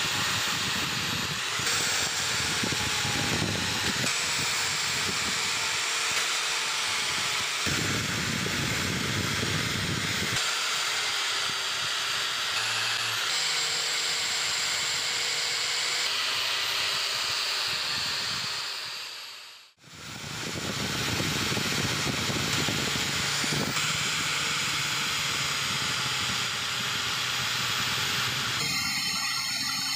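A power tool spinning a red non-woven abrasive wheel against the steel of a hammer head, with a steady whine and hiss. The sound breaks off briefly about two-thirds through, then resumes; by near the end it is a buffing wheel polishing the steel with blue compound.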